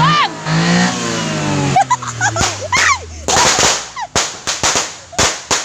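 An engine revving up and down, then, from about three seconds in, a string of New Year firecrackers going off in quick sharp bangs, about three a second.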